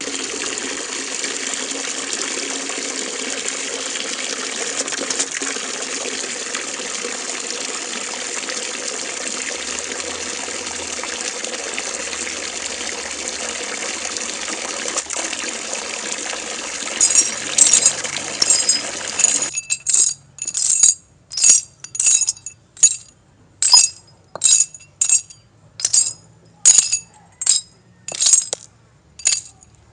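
A steady rushing hiss that cuts off suddenly about two-thirds of the way through, overlapped near its end by sharp clinks that then go on alone, about one and a half a second.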